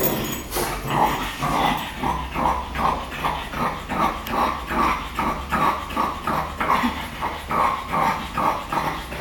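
French bulldog whimpering in short, repeated breathy cries, about two a second.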